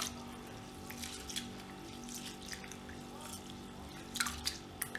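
Hand swishing and rubbing basmati rice in a steel bowl of water to wash it: faint sloshing splashes, a few about a second in and a cluster near the end.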